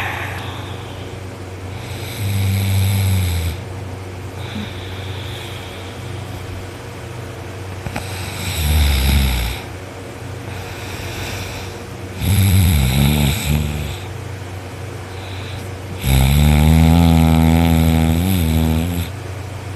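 A man snoring loudly in his sleep: four loud, low-pitched snores, one every four to six seconds, the last one the longest at about three seconds.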